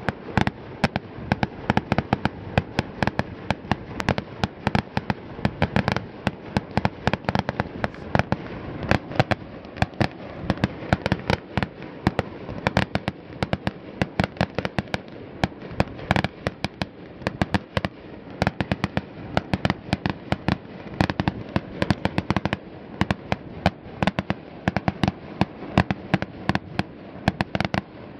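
Fireworks going off without pause: a rapid, irregular string of sharp bangs and pops, several a second.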